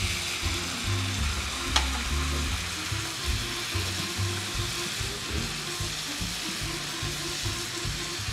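Mushrooms, sun-dried tomatoes and sesame seeds sizzling in a hot frying pan as soy sauce is poured in, stirred with a metal spoon, with one sharp click about two seconds in. Background music with a low bass line plays underneath.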